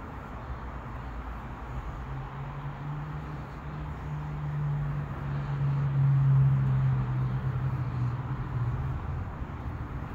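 A low motor hum swells to its loudest about halfway through, then fades away, its pitch sinking slightly, over a steady background hiss.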